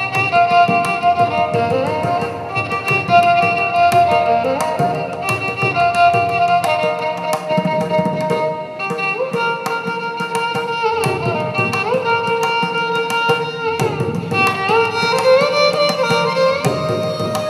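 Violin playing a film-song melody with frequent gliding slides between notes in Carnatic style, over a steady pattern of percussion strokes.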